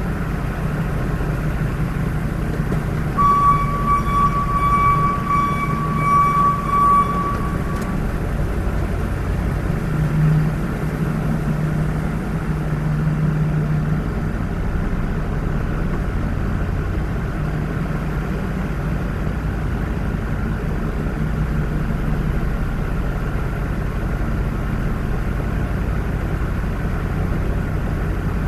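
Car driving, with steady engine and road noise throughout. A few seconds in, a high electronic beeping tone sounds for about four seconds, pulsing slightly, then stops.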